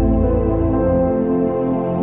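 Background music: sustained chords over a deep bass note that drops away about a second in.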